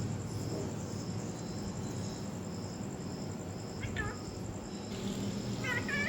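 Pet parrot giving a short chirp about four seconds in and a louder, warbling call near the end, over a steady background of high, evenly pulsed chirping like crickets.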